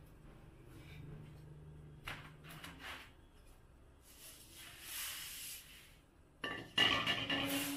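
Metal basin and bowl being handled on a concrete floor: a few light clicks and a soft rustle of the rice inside, then near the end about a second of metal clinking and scraping as the pans are set down.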